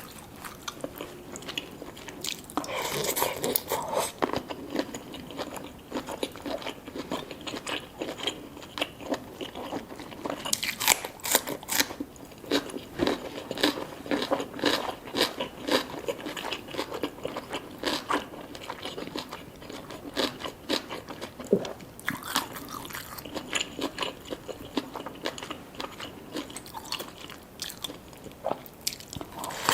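Close-miked eating of seafood boil food: steady chewing with many short wet clicks, broken by a few louder crunchy bites.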